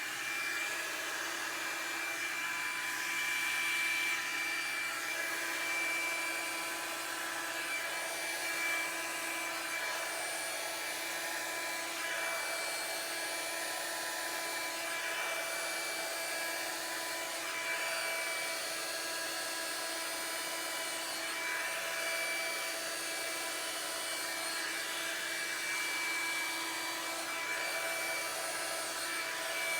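Revlon One Step paddle-brush hair dryer running on its low setting: a steady whine of the small fan motor over a rush of air.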